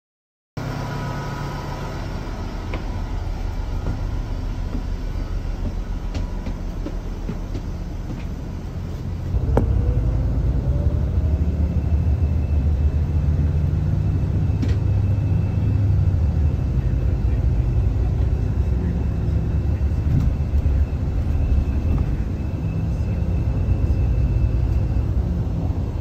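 Tour motor coach's engine and road noise heard from inside the cabin as it drives, a steady low rumble that grows louder about nine seconds in, with a short rising whine at that point.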